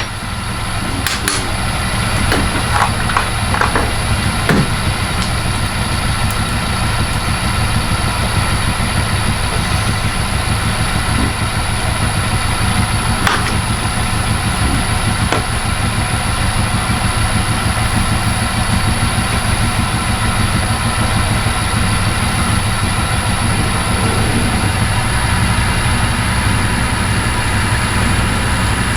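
Myford Super 7B lathe starting up and running steadily with a hum and a constant high whine, a drill being fed into the bar stock held in the chuck. A few light clicks and knocks come in the first few seconds.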